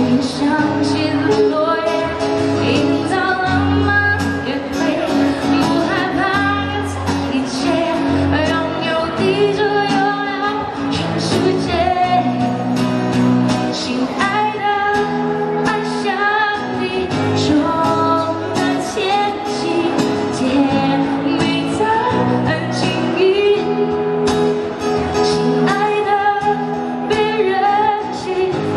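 A woman singing a pop song live into a handheld microphone, amplified, over steady instrumental accompaniment.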